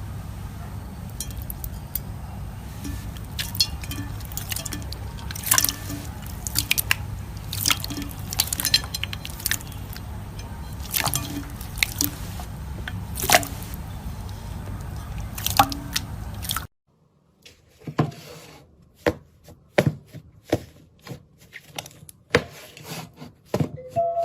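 Slime being squeezed and pressed, giving wet popping and clicking sounds over a steady low hum. The sound cuts off suddenly about two-thirds of the way through, then sparser, quieter pops follow.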